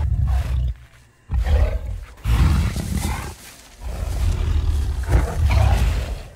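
A series of loud, deep beast-like roars with short breaks between them, the last one the longest.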